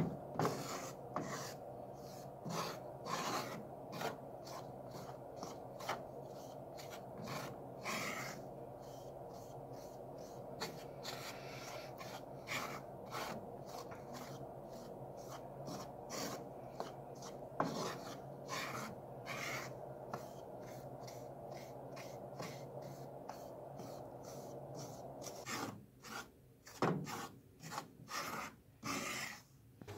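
Wooden spoon scraping and stirring flour as it toasts in a frying pan, a rasping stroke repeated unevenly about once or twice a second. A steady low hum runs underneath and drops out near the end.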